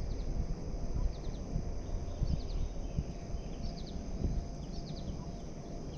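A small bird calling in short clusters of two to four quick high chirps, repeated about every second, over a steady faint high hiss and irregular low rumbling.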